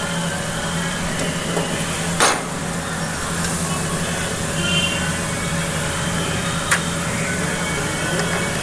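Hands working a plastic cable tie around a scooter's wiring harness, with a sharp click about two seconds in and a smaller one near seven seconds. A steady low hum runs underneath.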